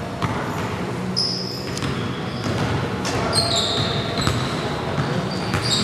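A basketball bounces with irregular thuds on a hardwood gym floor, among short high squeaks of sneakers on the court, echoing in a large hall.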